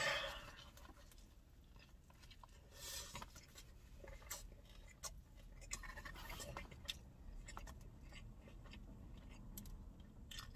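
A bite into a cheesesteak topped with hot Chester Cheetos on a soft seeded bun, then quiet chewing with scattered small crunches and mouth clicks.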